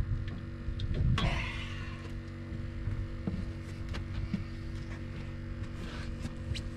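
A steady low hum with a few light knocks and clicks, and a brief rush of noise about a second in.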